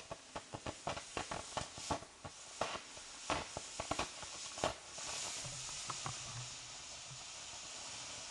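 Ground firework spraying sparks, giving a quick irregular run of sharp crackling pops for about five seconds, then a steady hiss.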